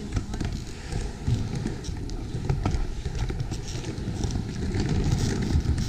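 Skateboard wheels rolling on a skatepark ramp and berm: a steady low rumble with scattered clicks and knocks, getting louder toward the end.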